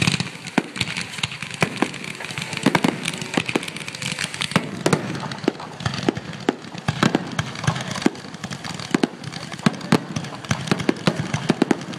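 Fireworks display: a rapid, irregular string of sharp bangs and crackles from aerial shells bursting, with the hiss of spark-spraying ground fountains near the start.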